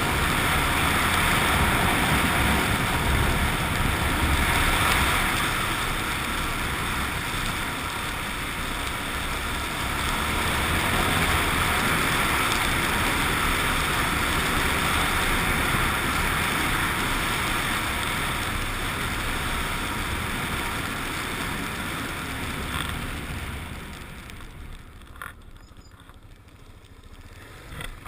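Suzuki XF650 Freewind's single-cylinder engine running while riding, with wind rushing over the GoPro's microphone. Near the end the sound drops noticeably quieter, with a couple of faint clicks.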